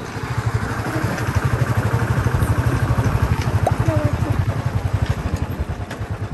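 Motorcycle engine running at riding speed with a rapid, even low beat, under a steady rush of wind and road noise.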